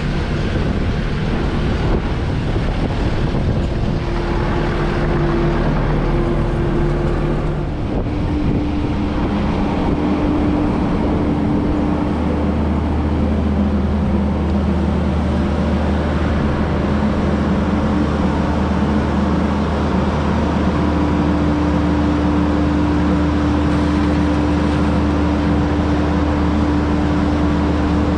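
Kubota SVL75-2 compact track loader's diesel engine running steadily. Its tones shift in pitch a few times in the first twelve seconds, then hold.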